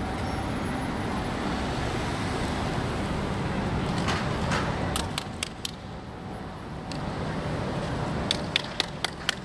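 Steady city street noise with road traffic, easing a little about halfway. It is broken by sharp clicks, a few about four to five seconds in and a quick run of about five near the end.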